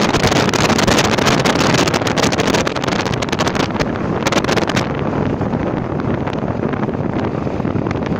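Wind rushing and buffeting over the microphone of a moving vehicle, with the vehicle's running noise underneath; the hiss eases a little about five seconds in.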